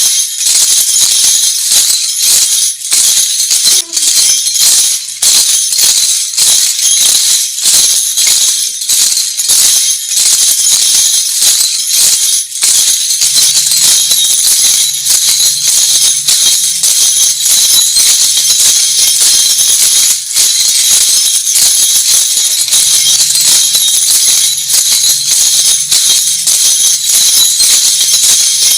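Lezim, the Maharashtrian folk instrument with metal jingle discs on a chain, shaken and snapped in a steady rhythm, its discs clashing in a loud, bright jingle. A faint low hum runs under it for two stretches in the latter half.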